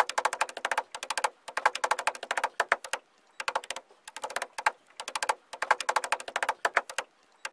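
Djembé drumming: fast runs of hand strokes in phrases about two seconds long, with brief breaks between them.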